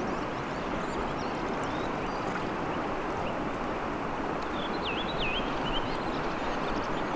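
Steady rush of flowing river water. A bird gives a few short, high chirps about five seconds in.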